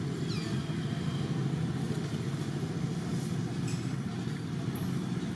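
Steady low rumble of background motor noise, with a faint high chirp shortly after the start.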